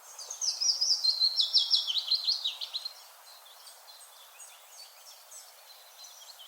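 A songbird sings a fast run of quick high notes for about three seconds, then quieter scattered chirps carry on over the faint steady hiss of a light breeze.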